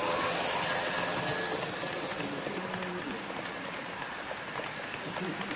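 HO-gauge model train, a red ED75 electric locomotive hauling blue passenger coaches, running past on the track. It makes a rushing rattle, loudest about the first second as the locomotive passes close, with rapid fine clicks of the wheels over the rails.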